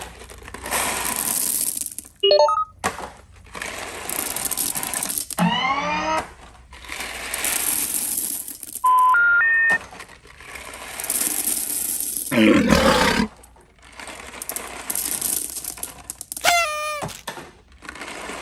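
A toilet flushing again and again in short cut-together clips of rushing water, broken up by cartoon sound effects: a run of rising glides, a stepped rising tone, and a loud crash about two-thirds of the way in.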